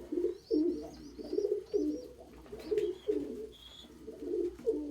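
Several domestic pigeons cooing, low rolling coos following one another about twice a second, with faint high chirps above them.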